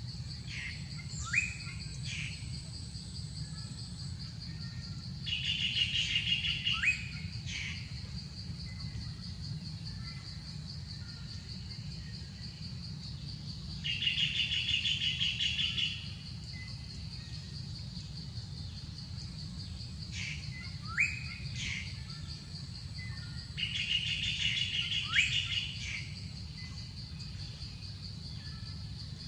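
Forest ambience: a steady, high insect drone throughout. Over it a bird gives a two-second trilled call about every nine seconds, and quick rising whistled notes now and then.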